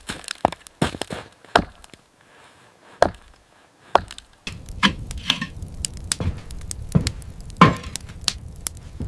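A run of sharp, irregular knocks and cracks. About four and a half seconds in, a low rumble starts underneath, with faster, lighter crackling over it.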